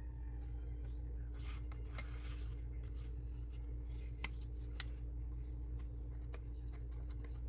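Sparse small clicks and a short scrape of model-kit pieces being handled and fitted together, over a steady low hum.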